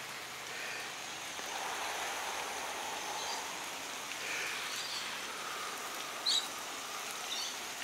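Steady hiss of water spraying from a garden hose onto a freshly mulched garden bed, with a short high chirp about six seconds in.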